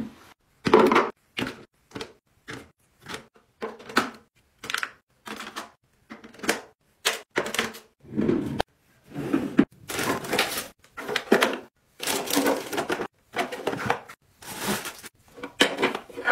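Close-up handling sounds in a bathroom drawer: a cloth wiping the drawer's base, then plastic toothpaste tubes, a plastic organizer tray and bottles being set down and slid into place. It comes as a string of short, irregular scrapes, rustles and taps, about one or two a second.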